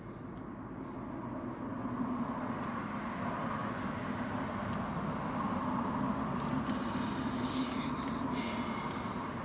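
Steady motor-vehicle running noise, growing louder over the first two seconds and then holding steady.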